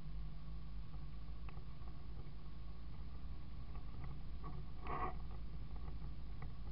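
Isuzu D-Max ute driving slowly over a rough dirt track, heard from inside the cab: a steady low engine and road drone with scattered small clicks and rattles. A brief louder noise comes about five seconds in.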